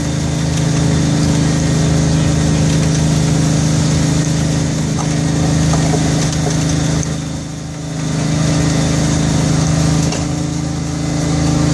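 Small engine of a ride-on tourist train running with a steady hum, heard from an open passenger car; it briefly drops in loudness about seven seconds in.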